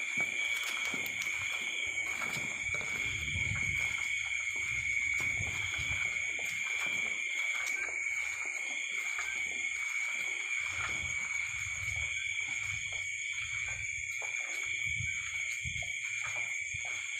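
Night insect chorus, a steady high-pitched chirring, with low rustling and scuffing underneath.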